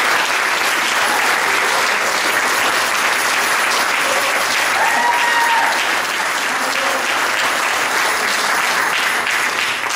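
Audience applauding steadily: a standing ovation of dense, even clapping from a large crowd in a hall.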